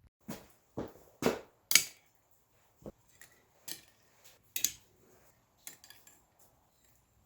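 Forged steel hooks of 1/4-inch round stock clinking and knocking against each other and on metal as they are handled. There are four sharp clinks in the first two seconds, then lighter scattered ones.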